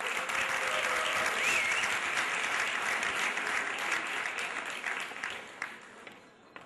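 Audience applauding, strongest at first and dying away over the last two seconds, with one brief whistle rising above it about one and a half seconds in.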